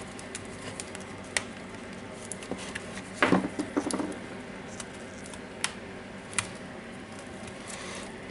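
Scattered small clicks and taps of hard plastic and metal parts being handled, with a short louder clatter about three seconds in, as the mode-change button is worked out of an opened Makita DHR243 rotary hammer.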